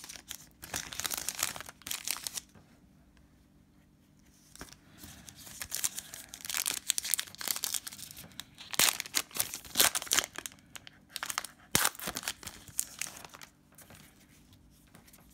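Trading-card pack wrapper being torn open and crinkled by hand, in irregular rustling bursts with a quiet pause of about two seconds early on and a few sharp crackles in the second half.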